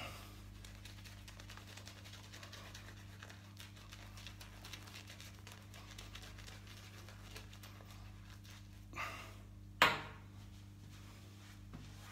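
Shaving brush working lather over stubbled skin: a soft, dense scratchy crackle. Just before ten seconds in comes a brief swish and then a single sharp knock, the loudest sound.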